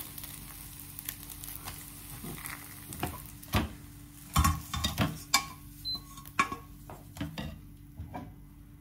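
Oil sizzling in a frying pan under a pancake, with a spatula scraping and knocking against the pan and sharp clanks as the pan is handled. The loudest clanks come around the middle, and the sizzle fades near the end.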